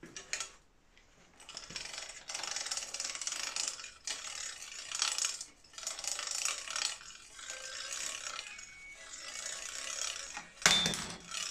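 An MBK bicycle's drivetrain being turned by hand on a workstand: the chain running over the chainring and sprockets, with the rapid ratcheting clicks of the rear freewheel. A sharp knock near the end.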